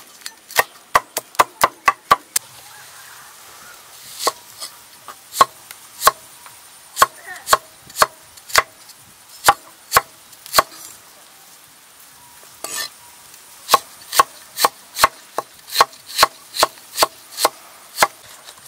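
Cleaver chopping on a wooden cutting board, each stroke a sharp knock of the blade on the board: a quick run of strikes through garlic at the start, then slower, spaced cuts through red onion, with a short pause past the middle.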